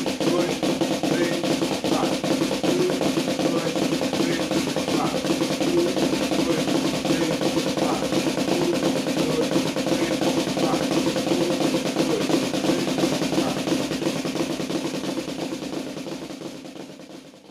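Snare drum played with sticks in a fast, continuous run of the Swiss Army Triplet, a flam rudiment played as sextuplets. The strokes come too quickly to separate and blur into a roll. It holds an even level and then dies away over the last few seconds.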